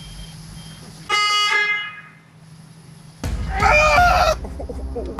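A Ford Mustang's car horn honks once, briefly, about a second in. About two seconds later comes a loud, wavering shout.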